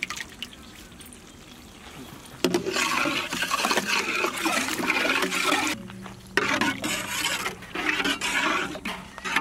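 Yogurt poured into hot tomato purée in a large metal cooking pot and then stirred in with a metal ladle: wet liquid stirring sounds. They get louder about two and a half seconds in and dip briefly near six seconds.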